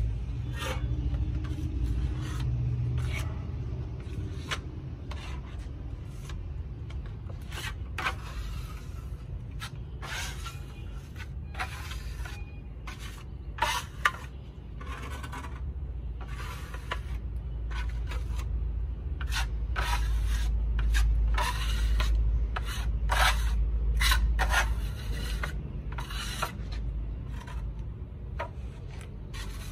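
Steel trowel scraping as it spreads a skim coat across a wall, in many short, irregular strokes, over a steady low rumble.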